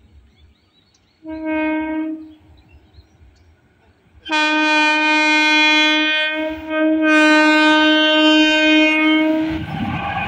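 Horn of a WAP-4 electric locomotive: a short single-note blast about a second in, then a long blast from about four seconds in that dips briefly midway. Near the end the loud rush of the train passing the crossing takes over.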